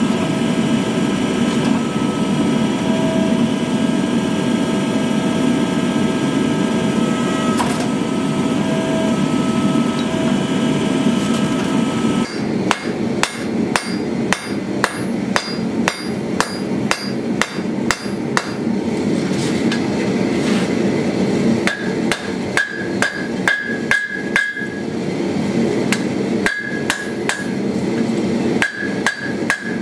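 A forging press runs with a steady machine noise for about twelve seconds. Then a hand hammer strikes glowing steel on an anvil, roughly two blows a second, with some blows ringing.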